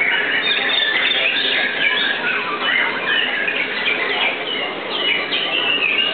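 White-rumped shamas (murai batu) singing together in a dense chorus of overlapping whistles and chatter.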